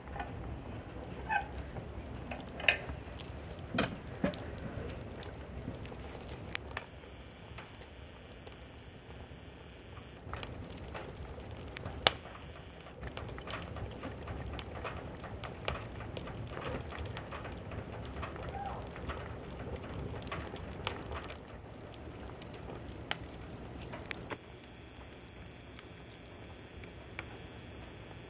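Wood fire burning in a wood stove with a lump of cattle dung on it: a steady low rush of flames with frequent crackles and pops, one sharp pop about twelve seconds in. A few metallic clicks from the stove door's handle in the first few seconds.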